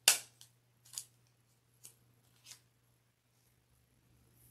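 Thin clear plastic card sleeve crackling as it is handled with a trading card inside: one sharp snap right at the start, then a few fainter clicks over the next couple of seconds.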